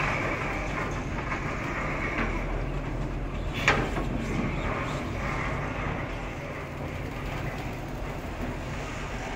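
Steady low engine rumble under outdoor noise, with one sharp click a little under four seconds in.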